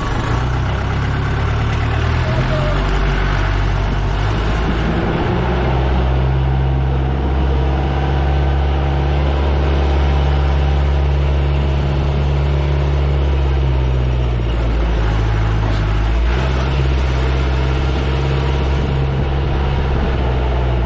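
Open jeep's engine running as the jeep drives along, heard up close: a loud, steady low drone whose pitch shifts about five seconds in and again around fifteen seconds in.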